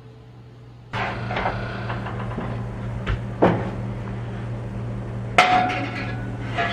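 A steady low electric hum switches on suddenly about a second in and keeps running, like a household appliance motor. Several sharp knocks and clinks of hard objects cut through it, the loudest two near the end.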